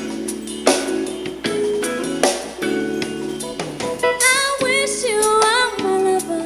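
A soul ballad with guitar, drums and a female vocal plays through an Audio-Technica AT-SPG50 compact speaker with its bass boost off. Drum hits land about a second and two seconds in, and a wordless sung run starts around four seconds in. The sound is thin in the low end, with more upper mids and treble.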